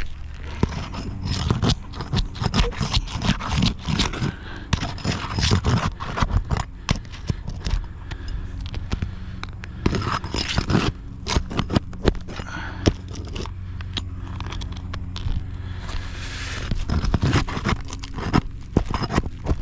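Irregular scraping and sharp clicks of a tool working against asphalt roof shingles, prying loose the nails of a wind-creased shingle, over a faint low steady hum.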